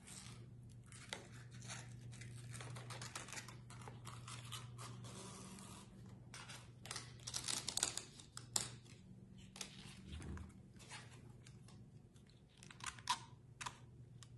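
Thin cereal-box card and ribbon being handled: irregular rustling and scraping as ribbon is threaded through punched holes in the cardboard crown, with a few sharp clicks, busiest in the middle. A low steady hum sits underneath.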